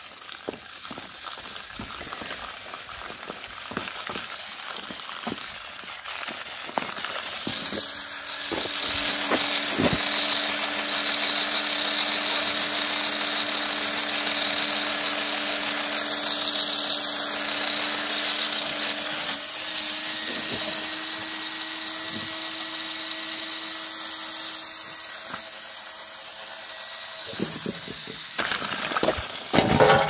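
Small electric motor of a homemade toy tractor whirring steadily, a hissy buzz with a low hum that steps up in pitch about two-thirds of the way through. A few knocks near the end.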